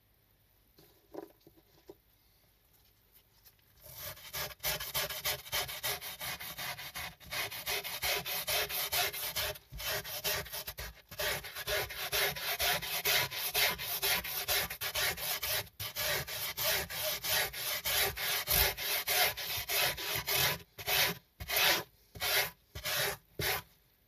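Small brush scrubbed back and forth over a wet, foam-covered miniature rug, rapid rubbing strokes starting about four seconds in. Near the end the strokes slow to separate scrubs, about two a second.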